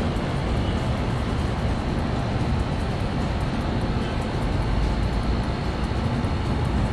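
Wind buffeting an action camera's microphone: a steady, rumbling roar that flutters unevenly in the low end, with no separate bangs.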